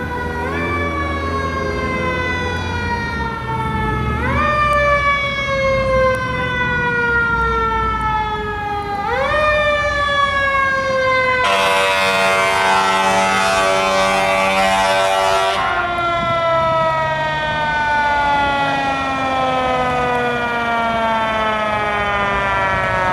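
Fire engine siren winding up quickly and coasting slowly down in pitch, three times over. Just past the middle an air horn sounds steadily for about four seconds, after which the siren coasts down again.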